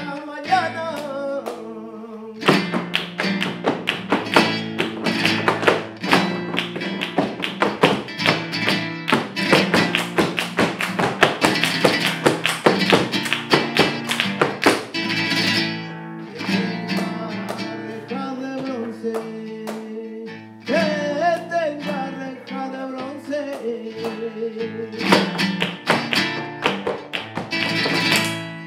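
Live flamenco: flamenco guitar and cante (flamenco singing), with rapid dancers' palmas (hand-clapping) and footwork on wooden boards. The percussion is dense for the first half, gives way to a sung passage over the guitar, and comes back near the end.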